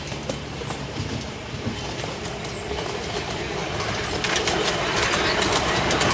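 Miniature steam locomotive Siusaidh approaching with its train of passenger carriages, growing steadily louder. From about four seconds in, the wheels click over the rail joints as the engine and carriages pass close by. A bird chirps faintly now and then.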